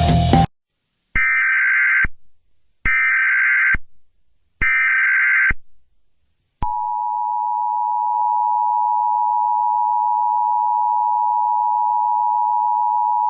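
Emergency Alert System tones: three one-second bursts of SAME header data, a buzzy warbling screech, each followed by a short pause, then the steady two-tone attention signal, which starts about six and a half seconds in and holds.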